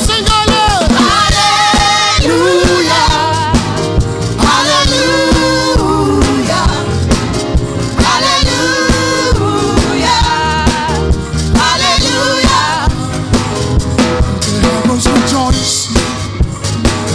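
Gospel praise singing: a church worship team sings into microphones over band music with a steady drum beat.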